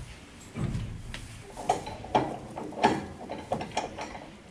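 Irregular knocks and metallic clatter from horse tack and stall fittings as a horse is being saddled in its stall, about half a dozen sharp knocks over a few seconds with a low rumble beneath.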